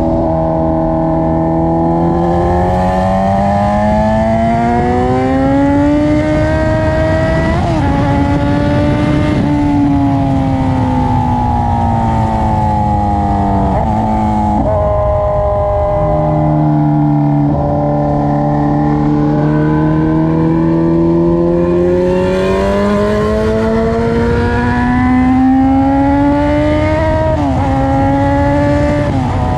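A 2017 Kawasaki Z900's inline-four engine, loud through aftermarket headers and a straight pipe with no muffler, pulling hard up through the revs twice. Each pull has a quick dip at an upshift. Between them the revs fall away as the throttle is rolled off.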